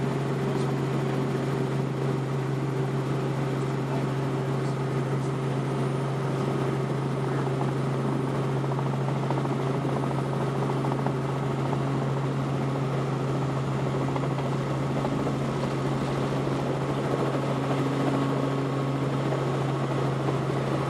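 Light helicopter's engine and rotors heard from inside the cabin as it comes in low over the airfield to land: a steady drone with a strong low hum.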